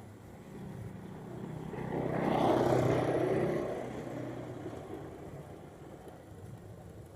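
A motor vehicle passing by: its engine noise swells, is loudest about three seconds in, then fades away.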